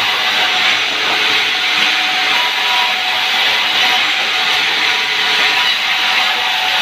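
Sawmill saw cutting through a log: a steady, loud noisy whine that holds even without a break.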